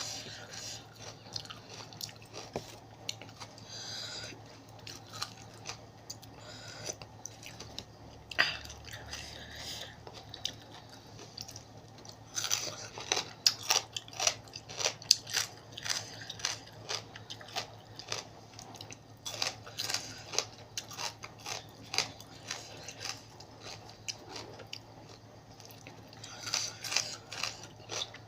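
Close-up chewing and biting of spicy seafood papaya salad, with many short crunches that come thickest about halfway through and again near the end.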